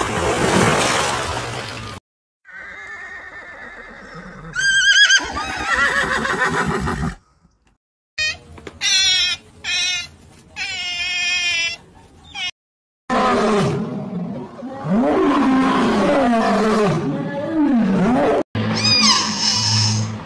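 A run of different animal calls. In the middle, a group of otters gives high-pitched, rapidly repeated chirping squeaks. Later come low, deep calls that slide up and down in pitch.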